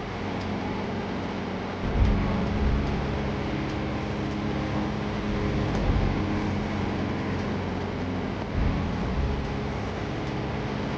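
Sea waves washing on a shore: a steady rush of surf, with heavier surges about two, six and nine seconds in, over a faint low steady hum.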